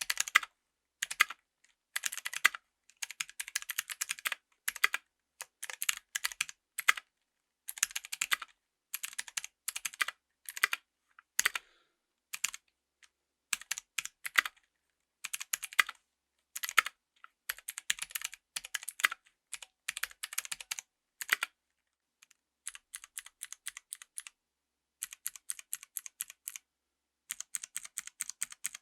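Typing on a mechanical keyboard with Kailh Pro Light Green clicky switches, whose click-jacket mechanism gives each keypress a sharp click, in fast bursts. About 22 seconds in, the typing gives way to quieter, evenly spaced single keypresses, a few a second.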